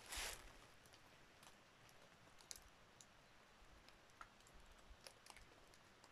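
Near silence, with a last footstep in dry leaves at the very start, then faint, scattered clicks and ticks.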